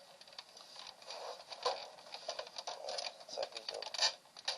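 Irregular clicking, tapping and rattling of plastic printer parts being handled and pried apart, with sharper clicks about one and a half seconds and four seconds in.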